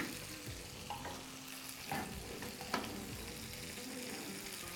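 Salmon fillets sizzling quietly in a ridged grill pan, a steady hiss with a couple of light utensil clicks about two seconds in.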